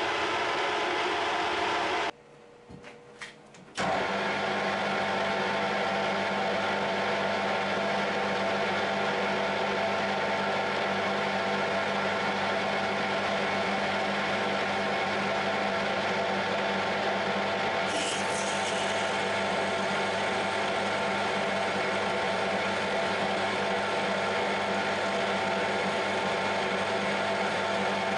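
Metal lathe running steadily, a hum of motor and gearing, while a stainless steel billet is faced and then drilled from the tailstock. The running sound drops away about two seconds in and returns a couple of seconds later.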